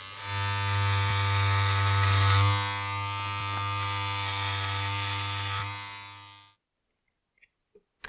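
Electric hair clippers buzzing steadily, a low hum with a bright hiss above it, fading out after about six seconds.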